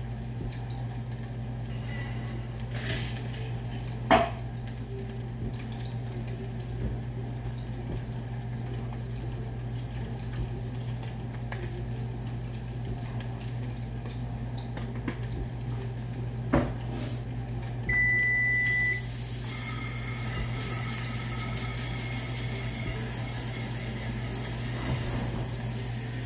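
Kitchen sounds over a steady low hum: a sharp knock about 4 seconds in and another about 16 seconds in, then a single electronic appliance beep lasting about a second. Just after the beep a steady hiss of the kitchen tap running into the sink starts.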